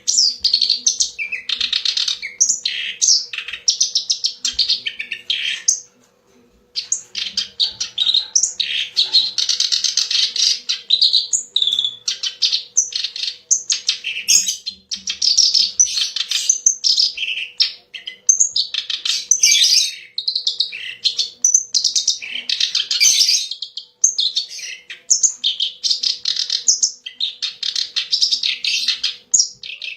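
Kerak basi, a reed warbler, singing a loud, fast, varied chattering song in long unbroken runs, with a short pause about six seconds in. This kind of recording is played as a lure song to train caged birds.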